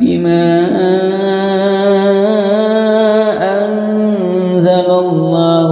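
Slow, melodic Quran recitation: one voice drawing out a long chanted phrase that wavers and glides in pitch, with a brief break about three and a half seconds in.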